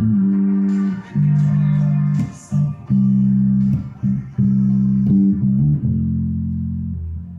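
Guitar playing held low notes and chords in short phrases with brief breaks between them. The last note rings out and fades away near the end.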